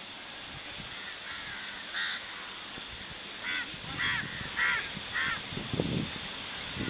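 Crows cawing: about five short, harsh caws in a loose series, most of them in the second half, over a steady background hiss.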